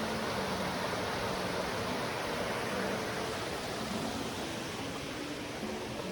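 Steady loud rushing noise with no pitch to it, starting suddenly just before and holding level throughout, with acoustic guitar music faintly beneath.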